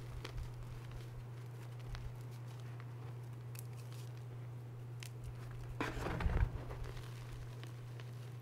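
Reformed gym chalk crushed and crumbled between the hands into loose chalk powder: sparse soft crackles, then a louder crunching burst about six seconds in. A steady low hum runs underneath.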